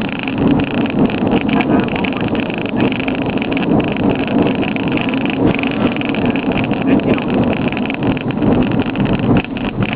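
Aircraft engine and runway noise during the landing roll just after touchdown, a steady noise that holds level throughout.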